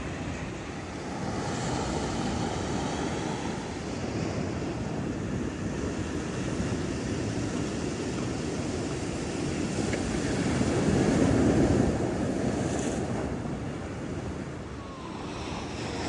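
Ocean surf washing onto a sandy beach and rocks, a steady rushing that swells into its loudest wave about eleven seconds in, with some wind noise on the microphone.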